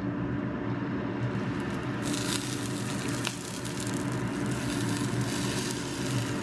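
Food frying in a pan: a hissing sizzle that comes in about two seconds in, over a steady low hum.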